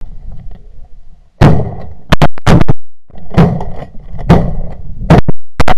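A rapid string of about ten shotgun shots from a group of hunters, coming in quick clusters after a faint low rumble, each report sharp and loud with a short trailing echo.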